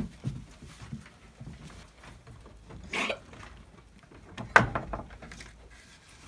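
Goats moving against the boards of a wooden pen: scattered knocks and rustling, a short noisy scuffle about halfway through and one sharp knock about two-thirds of the way in, the loudest sound.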